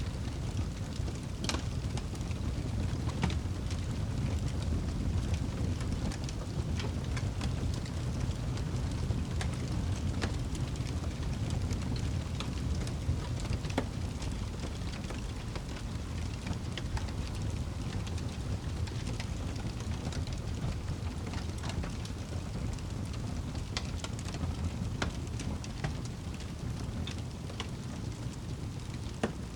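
Fire burning in a fireplace: a steady low rumble of flames with scattered sharp crackles and pops.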